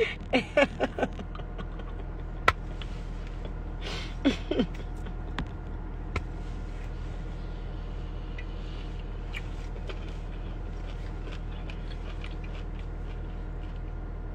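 Steady hum inside a car cabin, with a short burst of a woman's laughter at the start, another brief vocal sound about four seconds in, and a few sharp clicks, the loudest about two and a half seconds in.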